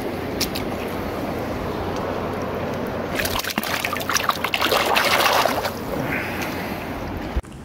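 Shallow river water running over rocks, with a hand splashing and sloshing in the water for a couple of seconds starting about three seconds in.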